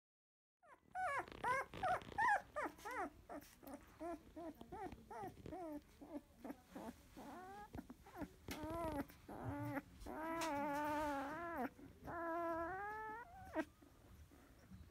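Two-week-old Labrador retriever puppies whimpering and squeaking, starting about a second in. A quick run of short squeals that rise and fall comes first, then scattered small whines, then two longer drawn-out whines near the end.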